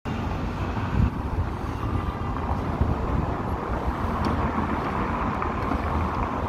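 Street traffic noise with wind buffeting the microphone in uneven gusts. A small hatchback car drives past near the start.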